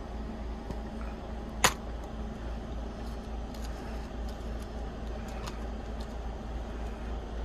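A plastic Blu-ray case being handled, with one sharp click about a second and a half in and a few fainter ticks, over a steady low background hum.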